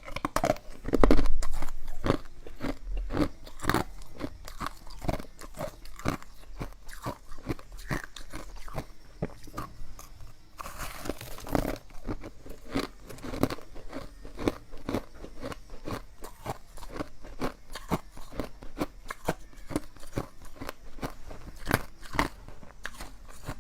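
Ice being bitten and chewed close to the microphone: a loud crunch about a second in, then steady brittle crunching and cracking as the pieces are ground down.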